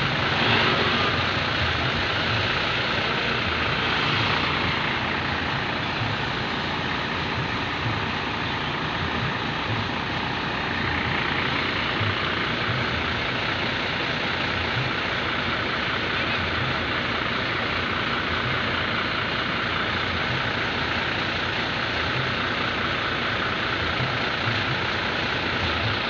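Tour bus engines running and road traffic noise as buses pass along the road, a steady low rumble without horns.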